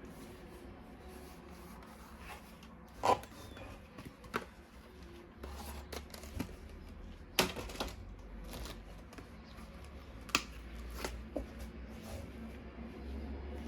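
Hands handling plastic toy weapon parts: irregular rustling and handling noise broken by about half a dozen sharp clicks and knocks, the loudest about 7 s in.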